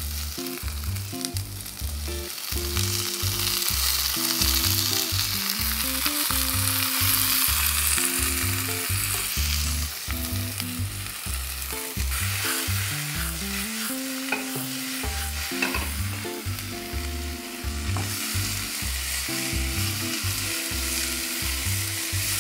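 Chopped onion, celery and carrot sizzling and being stir-fried in hot oil and rendered beef fat in a non-stick frying pan. The sizzle rises as the vegetables hit the pan and holds steady while they are stirred.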